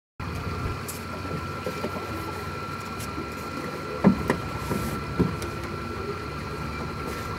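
Steady mechanical hum with a thin high whine held on one pitch, broken by a few sharp knocks about four and five seconds in.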